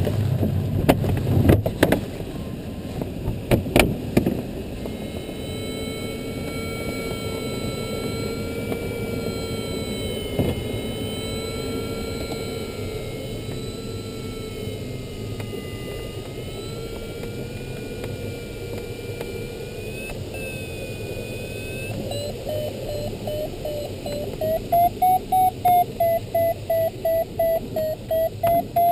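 Airflow hiss in an LS6 glider's cockpit with the audio variometer sounding: a steady tone that wavers up and down in pitch, then past the middle rises and turns into quick beeps, about two a second, the vario signalling that the glider is climbing in lift. A few sharp knocks come in the first few seconds.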